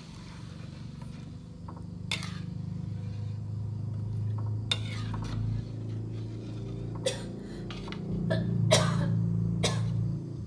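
Metal ladle stirring thick curry in a large aluminium wok, scraping and clinking against the pan about six times, loudest near the end, over a steady low hum.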